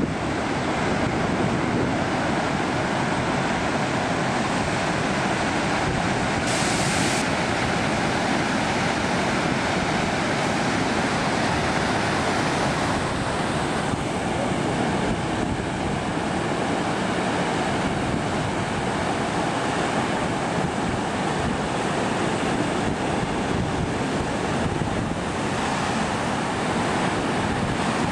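Heavy surf breaking and washing in foam over volcanic rock and against a sea wall, a steady, continuous rush of waves.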